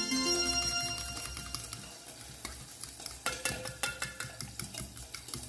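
A fork beating eggs in a stainless steel bowl, its tines clicking and scraping against the metal in a quick steady rhythm of a few strokes a second. A short musical flourish fades out during the first second or so.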